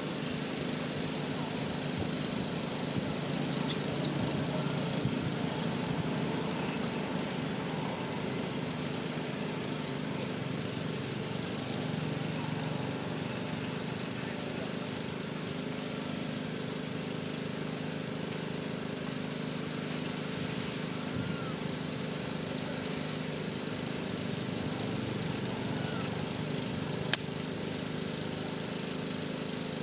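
A steady mechanical drone, like a small engine running, with a fine rapid pulsing that holds throughout; a single sharp click sounds near the end.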